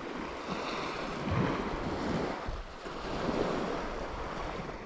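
Sea waves washing in, swelling and easing a few times, with wind rumbling on the microphone.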